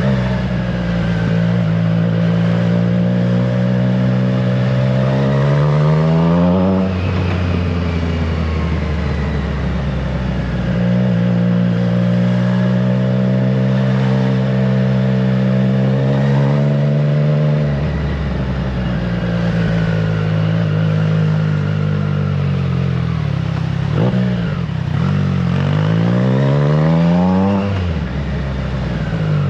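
Triumph Trident 660's inline three-cylinder engine through a FireTong aftermarket exhaust, accelerating while riding: revs climb and drop at a gear change about seven seconds in, hold steadier while cruising, then climb steeply again and drop near the end.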